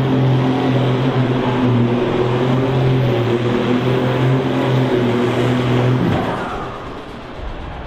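Ford TW-25 tractor's diesel engine running hard at steady high revs under full load, pulling a weight sled. About six seconds in the note breaks off sharply and the engine sound falls away.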